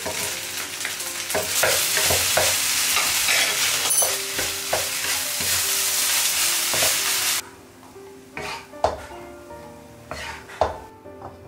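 Fried rice sizzling in a hot oiled pan as it is stirred, with repeated scrapes and knocks of the spatula against the pan. About seven seconds in the sizzling stops abruptly, leaving a few separate spatula clicks and knocks.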